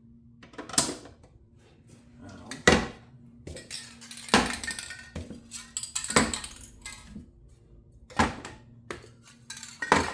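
3D-printed plastic shelf parts clacking and knocking as small printed caps are fitted onto the pegs: a series of about six sharp knocks and clatters, a second or two apart.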